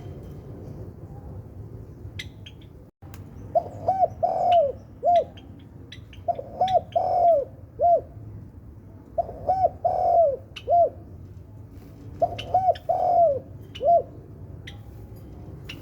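Spotted dove cooing: four repeated phrases of three or four low, soft coos, the first starting a few seconds in and the rest about every three seconds. Short high chirps of small birds are scattered throughout.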